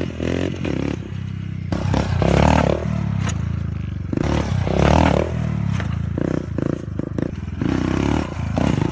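Dirt bike engine revving hard and easing off again and again as it is ridden in wheelies, with two loudest rev surges about two and a half and five seconds in.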